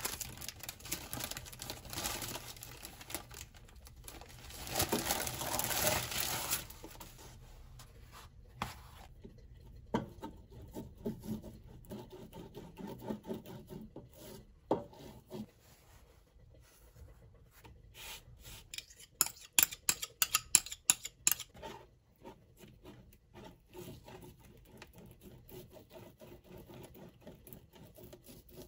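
Rustling and rubbing sounds of something being handled by hand, louder near the start, then quieter with scattered light clicks and a quick run of sharp taps about two-thirds of the way through.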